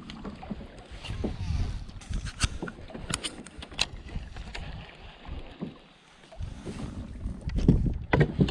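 Small waves slapping against a plastic kayak hull, with wind rumbling on the microphone and scattered sharp clicks and knocks. It eases off briefly about six seconds in, and there are a few louder thumps near the end.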